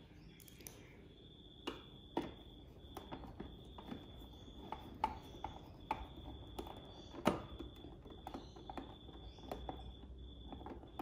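Hand screwdriver working a screw into the plastic housing of a ceiling-mounted garage door opener: irregular clicks and taps of the tool against the screw and cover, one sharper knock about seven seconds in.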